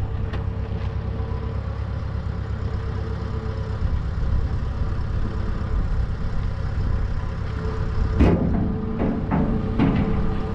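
Diesel engine of a SkyTrak telehandler idling steadily. About eight seconds in and again near the end, a steel beam knocks against the steel frame as it is slid through its brackets.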